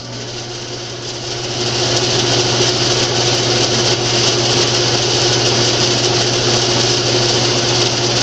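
Ridgid 14-inch bandsaw running: it comes up to speed over the first couple of seconds, then holds a steady hum with a fainter hiss of the blade and wheels. It is running smoothly and a whole lot quieter after its tune-up, with the failing lower wheel bearings replaced and the wheel tires ground true.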